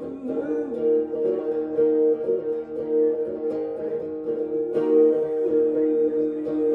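Steel-string acoustic guitar strummed in a steady rhythm, with a man singing along.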